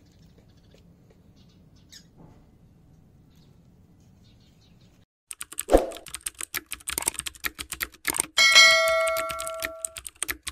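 Faint low hum, then about halfway through a rapid run of typewriter-style clicks as a subscribe reminder types out, with a thump as it starts. About three seconds later a notification bell dings and rings for over a second while the clicking goes on.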